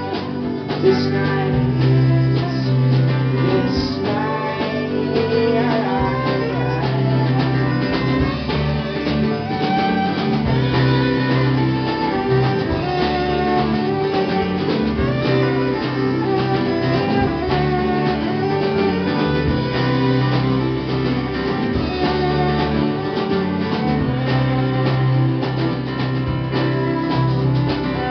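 Live indie folk band playing a passage with the fiddle bowing a lead over strummed acoustic guitar, electric bass and drums, with a steady beat.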